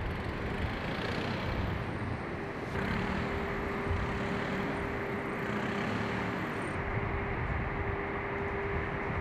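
Steady industrial noise from an aluminium plant: a broad, dense noise with a steady hum running through it, shifting abruptly about three and seven seconds in.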